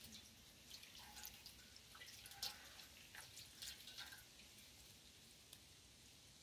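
Faint splashes and drips of water as a child's hands are rinsed in a metal basin, a scatter of small sounds over the first four seconds or so.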